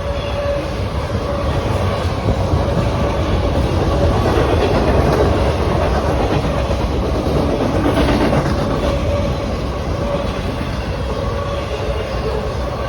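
CSX autorack freight cars rolling past on the rails, with wheels clattering over the track and a steady ringing tone, swelling slightly louder midway.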